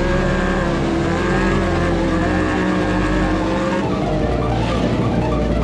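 Off-road side-by-side (UTV) engine running at high revs, its pitch holding steady, then fading about four seconds in as piano-like music comes in.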